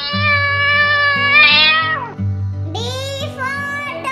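Cat meowing: one long, wavering meow of about two seconds, with a shorter call about three seconds in, over background music with a steady bass line.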